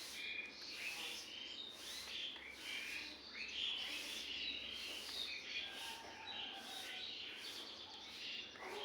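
Small birds chirping and twittering in quick, overlapping calls throughout.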